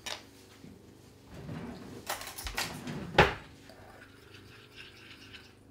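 Light kitchen clatter of a spoon and glassware as bicarbonate of soda is mixed into a little boiling water in a small glass bowl: a few soft clinks and taps, with one sharper knock about three seconds in.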